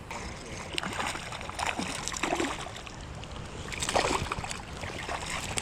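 Creek water running and splashing, with irregular small splashes and clicks over a steady low rumble.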